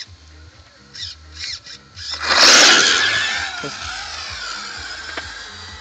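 Electric radio-controlled car launching hard on asphalt about two seconds in: a sudden burst of motor whine and tyre noise that falls in pitch and fades as the car speeds away.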